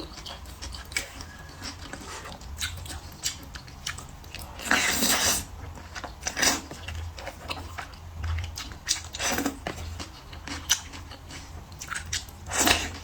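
Close-miked eating: chewing and biting food with wet mouth clicks and smacks, and a few louder slurping or smacking sounds spread through.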